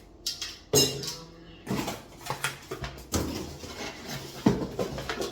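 Plastic blender parts and packaging being handled: clunks, knocks and rustling, with a sharp knock about four and a half seconds in.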